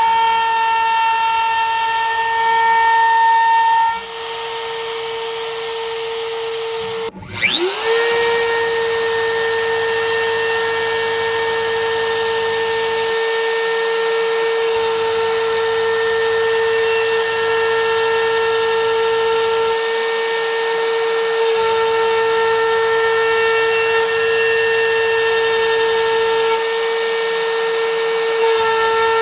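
Inventables CNC router spindle carving letters into a wooden block, a steady high-pitched whine. About seven seconds in the whine cuts out and rises quickly back up to speed, then holds steady.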